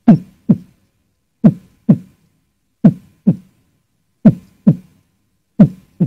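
Heartbeat sound effect: five low double thumps, lub-dub, about every one and a half seconds, with silence between them.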